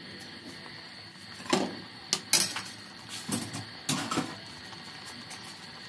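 A few scattered knocks and clinks, like kitchen utensils or cookware being handled, the loudest about two seconds in, over a steady low hiss.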